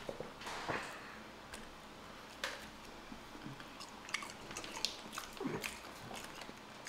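Boiled crawfish being peeled by hand and eaten: scattered small cracks and clicks of shells breaking, with soft wet chewing.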